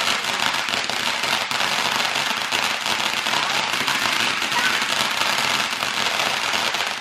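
Consumer ground fountain firework spraying crackling sparks: a dense, steady crackle of many tiny pops that keeps going without a break.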